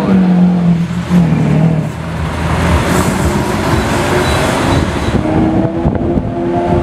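Lamborghini Aventador's V12 engine driving past and pulling away, with a steady engine note at first that gives way to general street traffic noise; another vehicle's engine tone comes in near the end.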